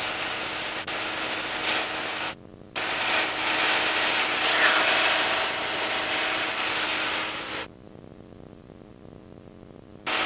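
Light-aircraft cockpit noise in climb, engine hum and airflow heard through the pilot's headset microphone and intercom as a steady hiss. The intercom squelch cuts it off abruptly twice: briefly about two and a half seconds in, and again about three-quarters through, leaving only a faint hum.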